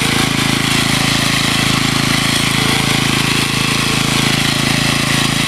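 Small gas-engine garden tiller running steadily as its tines churn through garden soil.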